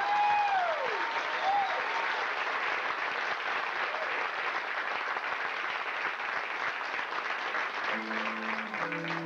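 Audience applauding steadily between songs, with a few high gliding calls or notes dying away in the first second. Near the end, steady held instrumental notes start the next song under the applause.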